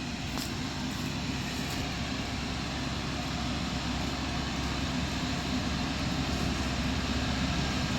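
Tractor-backhoe engine running steadily as it works the road, slowly growing a little louder.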